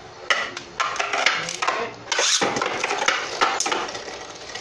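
Two Beyblade Burst spinning tops whirring and clattering in a plastic stadium: a dense, irregular rattle of sharp clicks and knocks as they scrape the stadium floor and hit each other.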